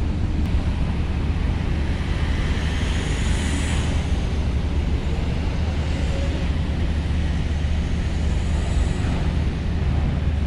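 Steady low engine rumble of vehicles and ferries at a port. A vehicle passes around the middle.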